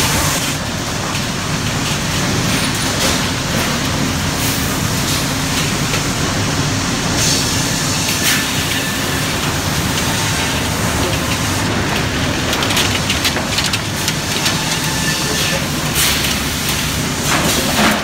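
Sawmill machinery running: lumber conveyor chains and rollers clattering steadily, with an occasional sharp knock.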